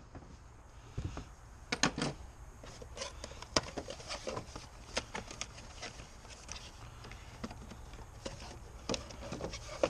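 Irregular light clicks, taps and knocks of hand work on an ATV's battery and its fittings, over a low steady hum, as a new battery is put in.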